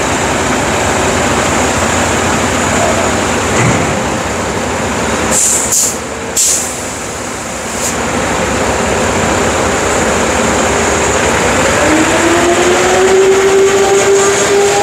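Concrete mixer truck running loudly. There are three short air hisses about five and a half to six and a half seconds in, and a slowly rising whine from about twelve seconds in.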